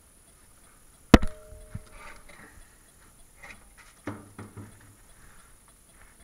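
A thrown object lands about a second in with one sharp, loud knock and a brief ringing tone. Fainter knocks and rustling follow.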